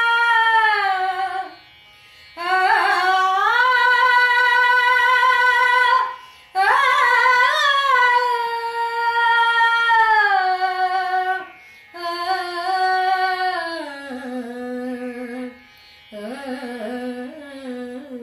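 A woman singing a Kannada song solo in Carnatic style, holding long notes with slow glides and fine ornaments, and breaking off briefly about every four to five seconds.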